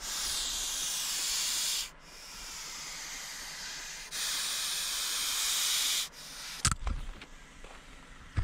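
Common European adder (Vipera berus) hissing defensively when disturbed: three long hisses of about two seconds each, the middle one quieter, each starting and stopping sharply. A few short knocks follow near the end.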